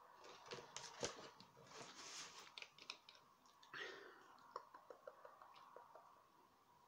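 Faint, scattered clicks and brief rustles of cosmetics packaging being handled and turned over.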